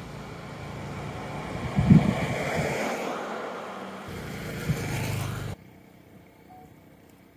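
A motor vehicle running by with a low engine hum and broad road-and-wind noise, with a couple of thumps on the microphone. The sound cuts off abruptly about five and a half seconds in, leaving only faint background.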